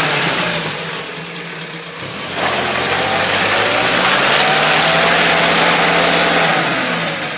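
UAZ-469 off-roader's engine working through deep mud: it eases off about a second in, revs up again about two and a half seconds in, and eases near the end.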